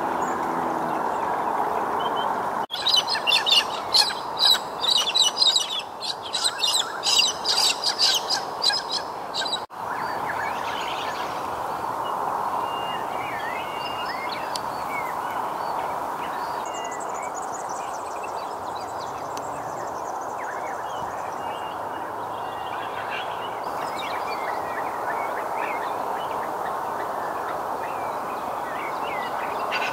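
Small wetland birds calling: from about three to ten seconds in, a loud run of fast, repeated chattering notes, then scattered fainter chirps. A steady background drone runs underneath throughout.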